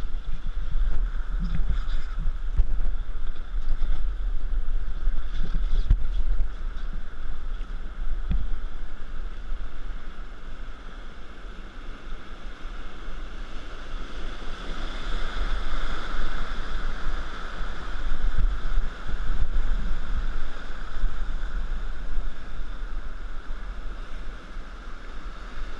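River rapid whitewater rushing and churning around a raft, swelling about halfway through. Wind buffets the microphone throughout, with a few faint low knocks.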